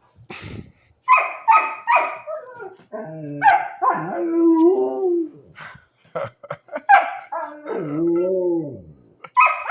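Dogs barking and howling back and forth: three quick sharp barks about a second in, then long, wavering howls that fall in pitch around the middle and again near the end, with more barks at the close.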